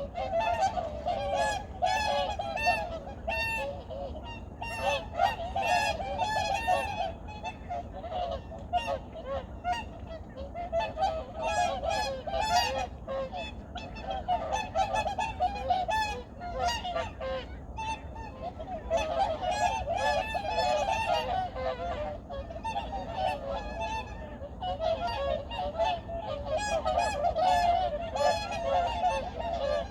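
A large flock of wild geese honking, many calls overlapping continuously.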